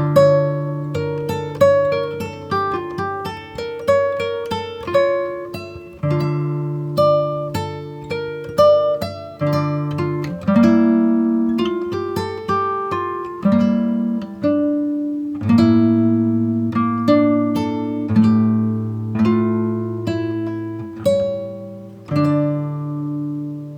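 Background music: acoustic guitar playing plucked notes and chords, each note ringing and fading.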